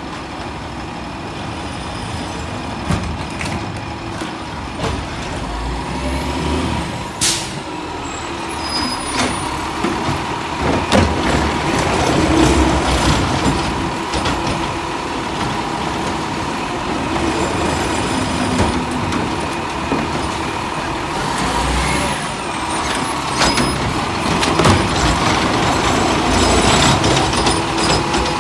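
Diesel Autocar ACX garbage truck running as it pulls up to the carts, with a sharp air-brake hiss about seven seconds in. In the last part its McNeilus ZR automated arm works hydraulically, grabbing and lifting a cart to dump it, and the noise gets louder.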